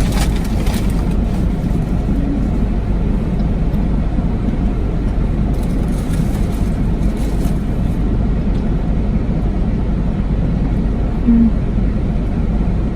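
Steady low rumble of a car's running engine, heard from inside the cabin. A few faint short rustles and brief low sounds sit over it.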